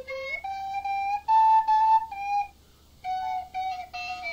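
Plastic recorder blown by a horse while a man fingers the holes, sounding a simple tune: a few held notes stepping up in pitch, a short break, then a string of shorter notes.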